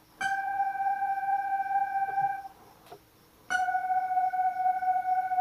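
Electronic keyboard playing a smooth synth lead voice one key at a time: two long held notes, the second slightly lower and starting about three seconds after the first, with a quiet gap between. It is a slow, note-by-note run through a melody phrase.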